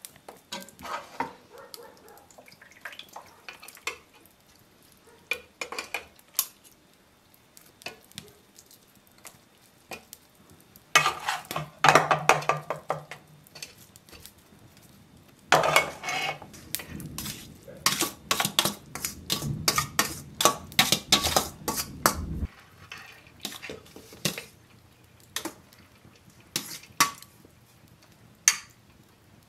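Metal spoons scraping and clinking against metal cooking pots, a bowl and a colander in irregular clatters. The clatter is densest in two stretches, one a little before and one a little after the middle.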